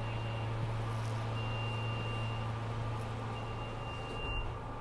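Train car interior with a steady low hum from its equipment. A high-pitched beep repeats about every two seconds, each beep lasting about a second.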